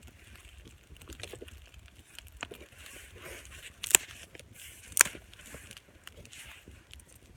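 Small wood campfire crackling, with scattered light snaps and two sharp, loud pops about a second apart near the middle.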